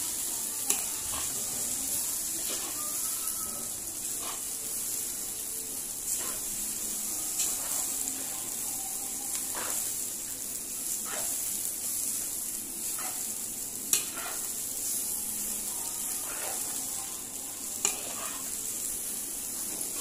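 Flat rice noodles sizzling in a hot wok as a metal spatula stirs and turns them, with a steady frying hiss. Several sharp clanks of the spatula against the wok stand out, the loudest about two-thirds of the way through.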